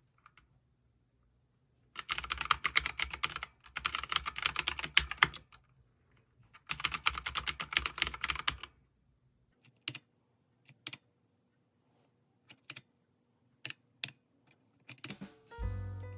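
Typing on an ABKO Hacker K640 mechanical keyboard: three runs of rapid keystrokes, then scattered single key presses. Music comes in near the end.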